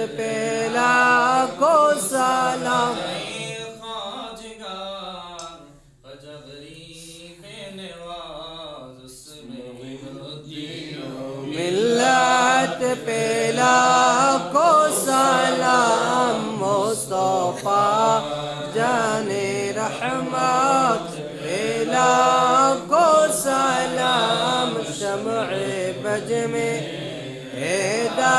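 Men's voices chanting a milad recitation of blessings on the Prophet in a slow, wavering melody. It quietens about four seconds in and swells back to full strength about eleven seconds in.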